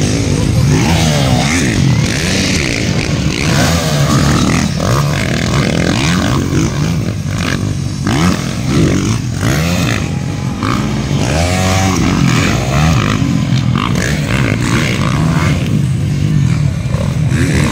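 Motocross bike engines revving as several bikes race past, their pitch rising and falling again and again as the riders open and close the throttle and shift. The sounds of the different bikes overlap.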